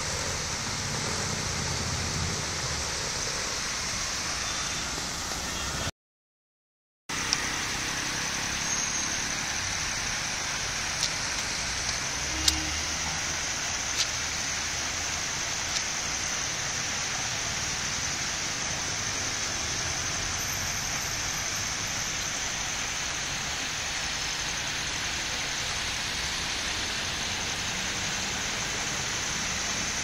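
Storm water rushing steadily into a lake, a constant even wash of noise. It cuts out completely for about a second some six seconds in.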